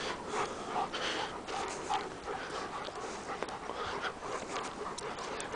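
Large long-haired dog panting hard after running, a quick run of short breathy puffs.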